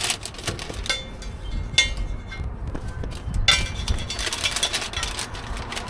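Cooking utensils clinking and tapping at a street-food stall, several sharp knocks with a cluster about three and a half seconds in, over steady low background noise.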